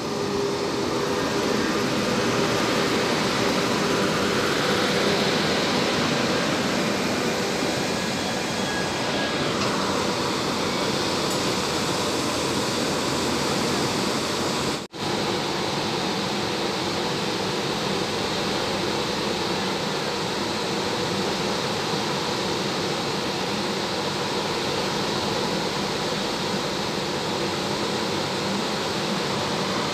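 Electric locomotive and its passenger coaches rolling slowly alongside the platform as the train arrives. The locomotive's cooling blowers make a steady, even rush over the rumble of the wheels on the rails, with a momentary break about halfway through.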